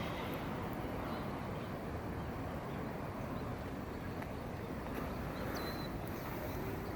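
Steady outdoor background noise with no clear single source, and one short high chirp about five and a half seconds in.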